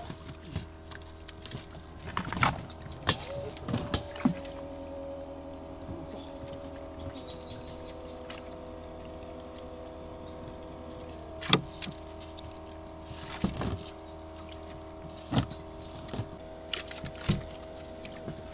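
Steady mechanical hum under scattered sharp slaps and knocks as the wet cast net and the fish caught in it hit the plastic-covered boat deck.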